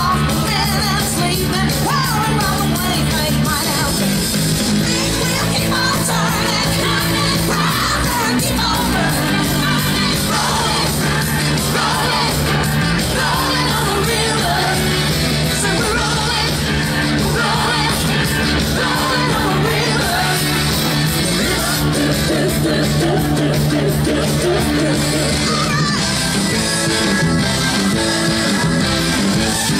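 Loud pop song with singing played through a stage PA, with shouts and yells from the crowd.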